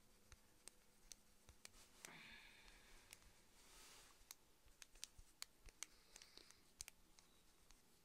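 Near silence: a faint soft rubbing of a foundation stick worked over skin in circular motions, clearest about two and four seconds in, among scattered faint clicks.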